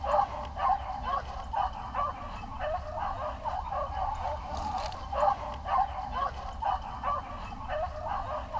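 Beagles baying on a rabbit's track: short, repeated, overlapping calls, a few each second, the sound of hounds in full cry running a cottontail.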